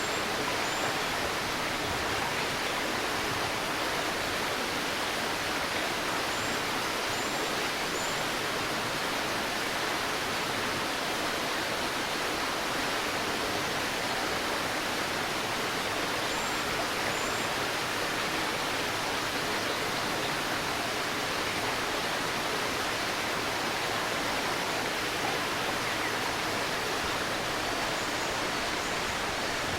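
A river babbling in a steady, even rush of water. A few faint, short, high bird chirps sound now and then above it.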